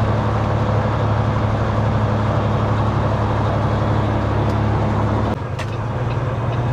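Peterbilt 389 semi truck's diesel engine running steadily under way. About five seconds in, the engine note drops suddenly and a couple of light clicks follow.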